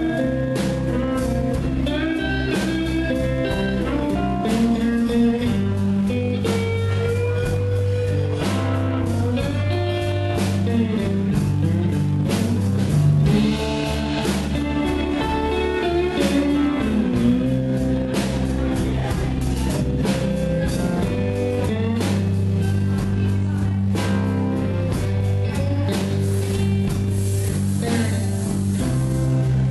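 Live blues band playing a slow instrumental passage: a lead guitar with gliding notes to the fore, over bass guitar and drums.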